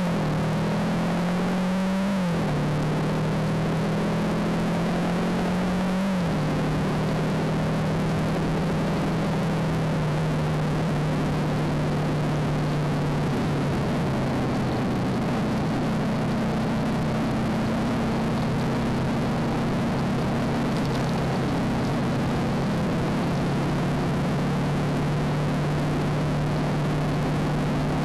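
Motorcycle engine running under way, heard through a dashcam's microphone along with a steady rush of wind noise. The engine pitch climbs and drops twice in the first six seconds as the bike pulls away through the gears, then holds steady at a cruise.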